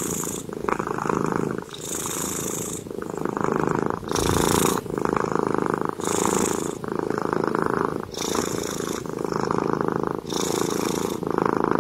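Tabby cat purring steadily. The purr changes with each in-and-out breath, about every two seconds.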